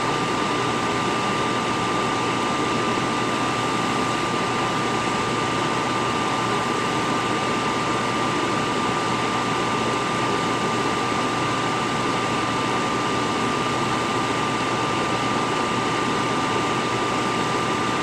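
Steady fan hiss with a thin high whine running through it, unchanging throughout.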